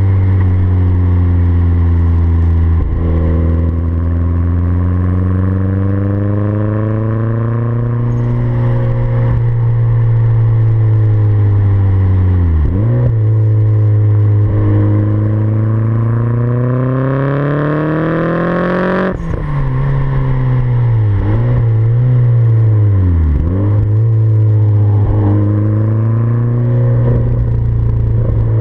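Turbocharged Renault 9 with an F7R engine and 3-inch exhaust, its revs rising and falling several times. One long climb ends in a sudden drop about 19 seconds in, followed by several quick dips and recoveries.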